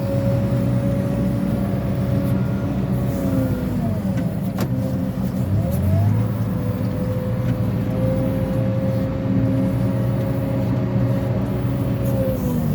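Caterpillar 416F2 backhoe loader's four-cylinder diesel engine running at high revs under working load. The revs drop about three and a half seconds in, climb back up about two seconds later, then drop again near the end.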